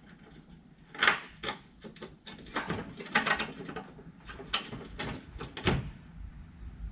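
Irregular metal clanks and knocks, about a dozen over several seconds, as parts of a flail mower's rotor and bearing mounts are handled and fitted into place.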